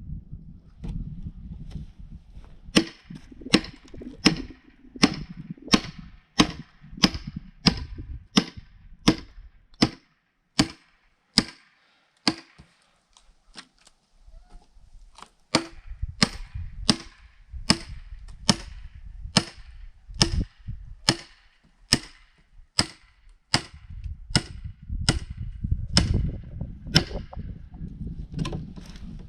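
Mini sledgehammer striking the back of a froe again and again, driving the froe's blade deeper into a log to split it: sharp metal-on-metal blows at about one and a half to two a second, stopping for a few seconds in the middle before starting again.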